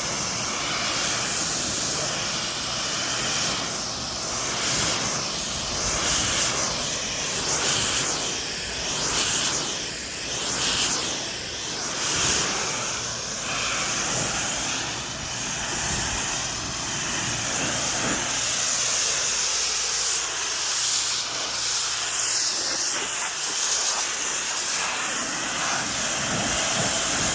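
Pressure washer spraying water: a loud, steady hiss of the high-pressure jet. It swells and fades every second or two between about 4 and 13 seconds in, then steadies.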